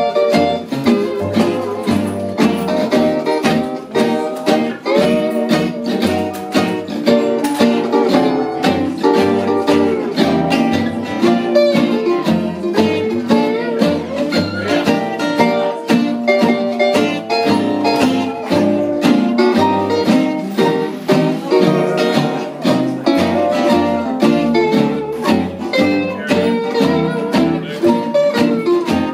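Acoustic string band playing an instrumental passage with a steady beat: several acoustic guitars and a mandolin strumming and picking over a plucked upright bass line.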